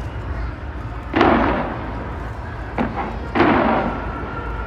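Fireworks bursting from a skyscraper display: three booms, about a second in and then twice near the three-second mark, each trailing off, over a continuous low rumble.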